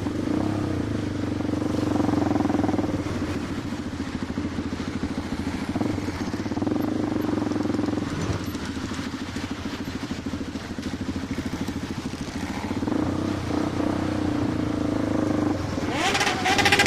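Motorcycle engine running steadily at a constant pitch. Near the end the sound gets louder and brighter, with a rising pitch.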